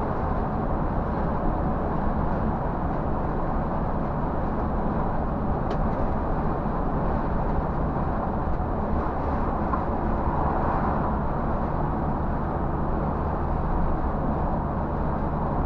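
Scania coach driving at highway speed, heard from inside the driver's cab: a steady drone of engine and road noise.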